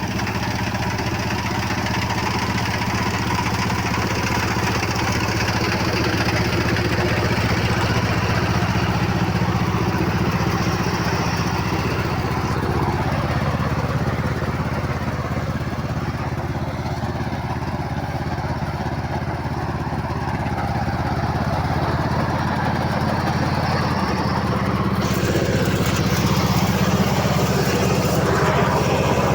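Mini combine harvester's engine running steadily at a constant speed. A higher hiss joins in near the end.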